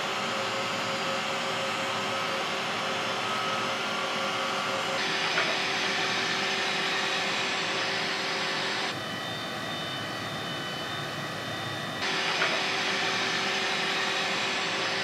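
CNC vertical machining center running, a steady machine-shop noise of spindle and coolant with a few faint steady tones. The sound changes abruptly about 5, 9 and 12 seconds in, where different takes are cut together.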